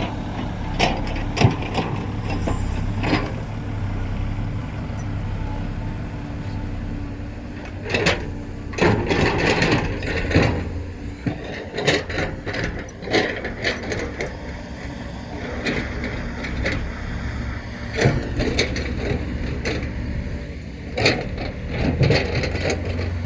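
Diesel engine of earthmoving machinery running steadily, with sharp knocks and clunks scattered through it, clustering twice.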